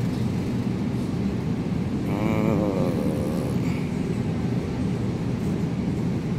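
Steady low rumbling background noise of a supermarket aisle, with a brief voice in the background about two seconds in.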